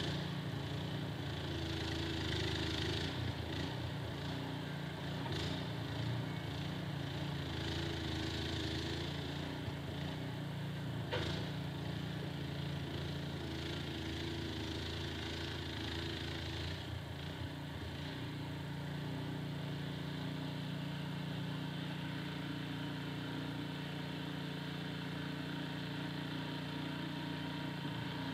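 Snowblower's small engine running steadily, with a single sharp click about eleven seconds in.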